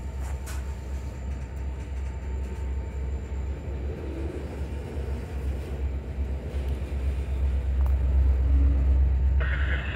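Freight train of covered hopper cars rolling slowly past, a steady low rumble of wheels on rail.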